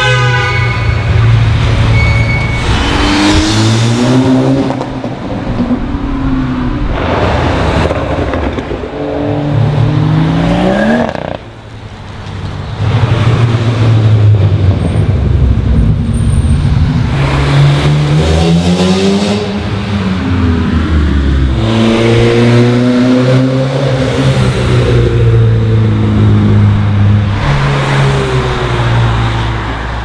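A string of sports and tuned cars accelerating past one after another, each engine note revving up and falling away, echoing off the concrete underpass.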